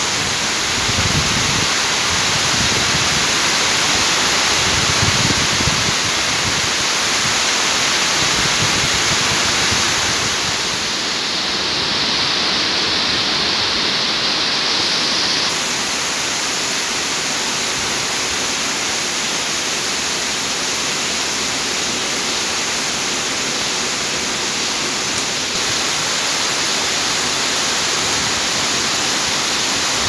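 Heavy rain pouring steadily, a dense even hiss of water falling on roofs and streets; the hiss brightens briefly a little after ten seconds in.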